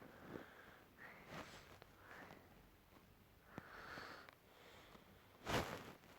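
Quiet sniffs and breaths close to the microphone, the loudest a short sniff about five and a half seconds in, with a few faint ticks between them.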